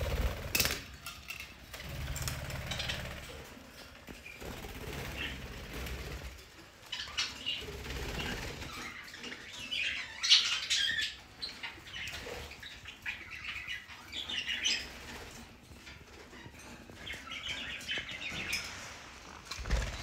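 Budgerigars chirping and chattering in scattered short bursts, with a low rumble between about two and six seconds in.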